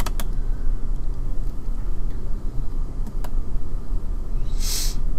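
Steady low rumble of background noise, with a couple of faint clicks near the start and another about three seconds in, and a short breath-like hiss near the end.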